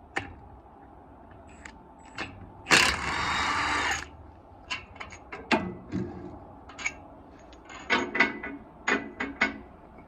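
A cordless power tool runs in one burst of about a second, driving the bolts on the wood chipper's knives. It is followed by a string of sharp metallic clicks and knocks as the knives and bolts are handled.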